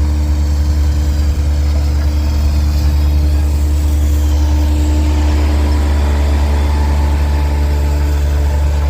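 Asphalt roller's engine running with a steady low drone.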